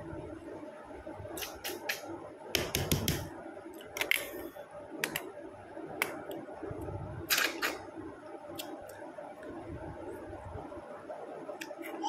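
Close-miked eating sounds of a person chewing a mouthful of rice and curry: sharp, wet clicks and smacks of the lips and tongue, irregular, with a cluster about three seconds in, over a faint steady hum.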